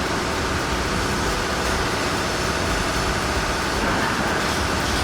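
Heavy machinery engines running: a steady, even mechanical noise with no breaks or sudden changes.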